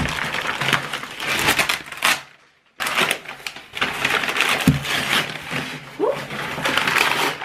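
Plastic courier bag and brown kraft paper wrapping being torn open and crumpled by hand, a dense crackling rustle, with a brief gap a little over two seconds in.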